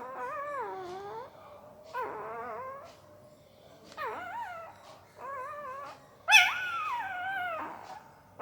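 Newborn Indian pariah dog puppy whimpering in its sleep: five separate wavering, high-pitched whines, the last the loudest and longest.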